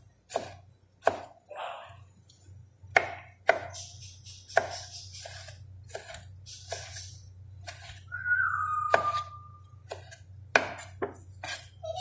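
Knife chopping vegetables on a cutting board, sharp irregular strikes about once a second. About eight seconds in, a single whistle from the grey parrot, dropping slightly in pitch and held for over a second.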